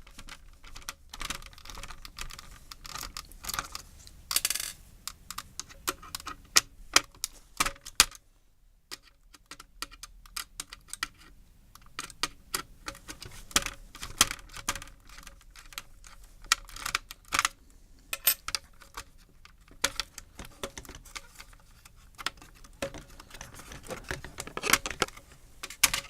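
Irregular clicks, taps and small clatters of plastic and metal parts being handled and unscrewed while an HP computer keyboard is taken apart, with a brief scrape about four seconds in.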